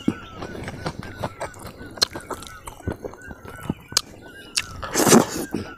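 Mouth sounds of eating rice and fish by hand: sharp wet clicks and smacks, with a louder breathy burst about five seconds in. Behind them a bird chirps over and over, short chirps at the same pitch repeating through the whole stretch.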